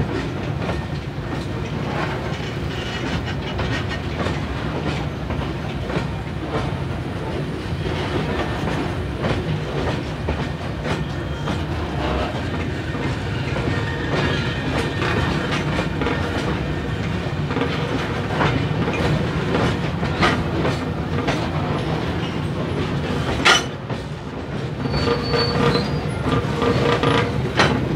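Loaded freight wagons rolling past at close range, their wheels clattering steadily over the rail joints. A sharp knock comes near the end, followed by a faint wheel squeal.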